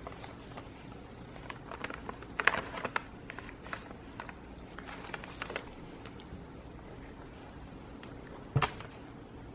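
Scattered light clicks and rustles of objects being handled, with one sharper knock near the end, over a low steady background hum.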